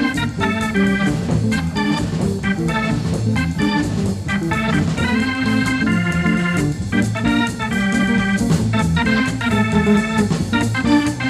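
Hammond organ playing jazz: quick runs of short notes over lower held notes.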